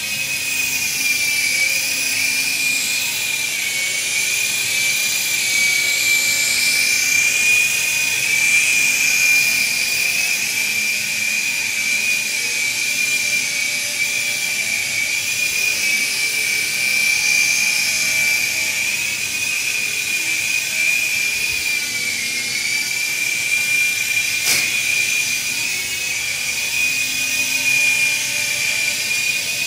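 S113G micro remote-control helicopter in flight: a steady high whine from its electric motors with rotor hiss, wavering a little in pitch as it manoeuvres. One brief tick near the end.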